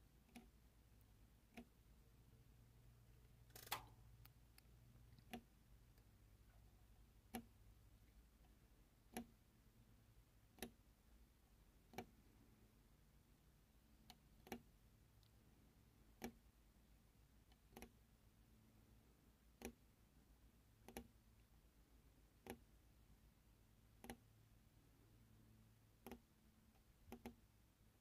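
Faint, sharp clicks of a steel scribe and metal ruler against knife liners, roughly one every one and a half to two seconds, as a line is scribed every eighth of an inch; one stroke about four seconds in is louder and slightly longer.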